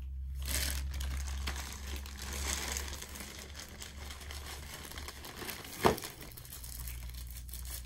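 Packaging crinkling and rustling as pipes are unwrapped by hand, with a single sharp knock about three-quarters of the way through.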